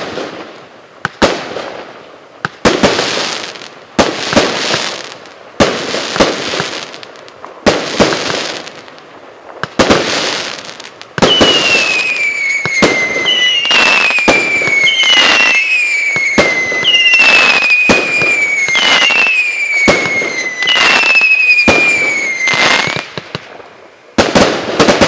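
Russkaya Pirotekhnika 'Alye Parusa' PC6515 fireworks cake, 36 shots of 0.8-inch calibre, firing: a sharp shot about every second and a half, each followed by its burst. About halfway through comes a run of six whistling tracers, each whistle falling in pitch, with shots still going off between them, and then two last quick shots near the end.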